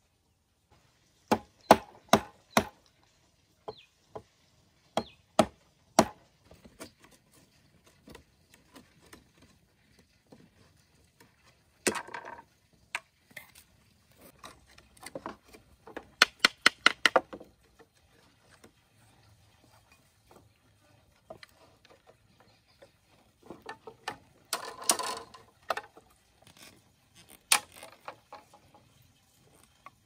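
Machete blade chopping and notching a wooden stick: sharp wooden knocks in short clusters, with a quick run of about eight strokes near the middle.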